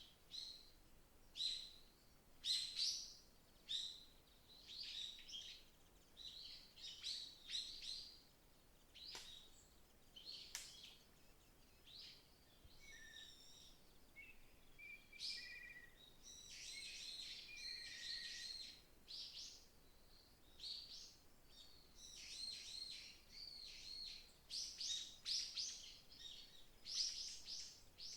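Several small forest birds chirping and singing, short high calls repeating throughout, with a few clear whistled notes and a denser stretch of song past the middle.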